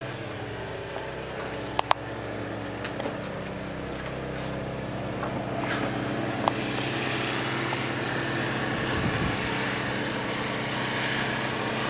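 Snowblower's small petrol engine running steadily, its hiss growing louder about halfway through, with a few sharp clicks near the start and middle.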